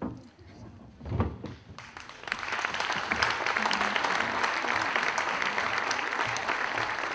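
An audience applauding, starting about two seconds in and carrying on steadily. A short low thump comes about a second in, before the clapping.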